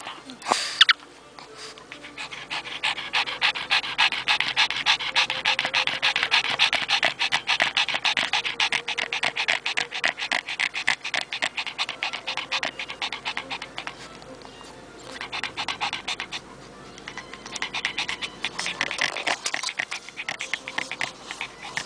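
Pekingese dog panting rapidly with its tongue out, a quick, even run of breaths that eases off briefly about two-thirds of the way through and then picks up again.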